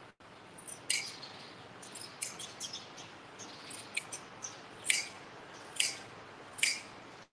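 Hand-held blade shears snipping through a sheep's fleece: a string of short, sharp snips, irregularly spaced about a second or less apart, as the shearer works the long blows along the sheep's side.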